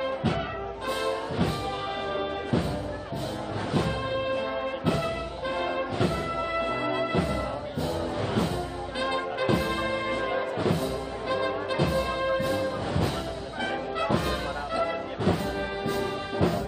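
Procession band playing a march: brass holding sustained chords over a steady drum beat, about one stroke a second.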